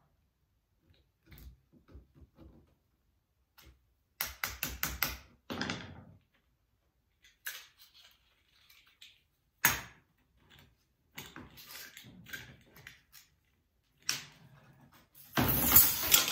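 Small metal parts of a broken hand tool clicking and rattling as it is worked apart by hand: scattered clicks and quick runs of clicks, then a louder, longer clatter near the end.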